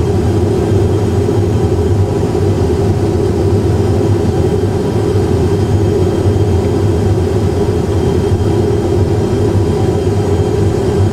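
Steady cockpit noise from an Airbus A320 full flight simulator: a constant rumble of simulated engine and airflow noise in flight, with a low steady hum.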